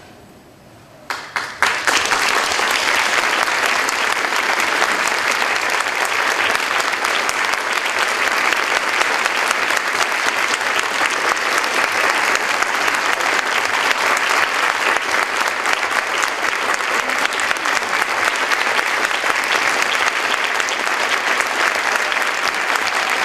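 Audience applauding: a few separate claps about a second in, then dense, steady applause that holds throughout.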